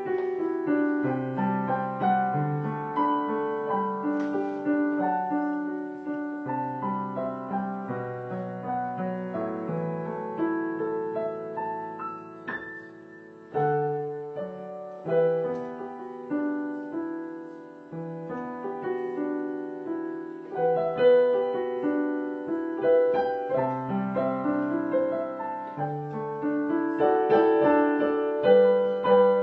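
Piano music: a slow piece of chords and melody notes, each note fading after it is struck, with a brief lull about halfway through before a new phrase begins.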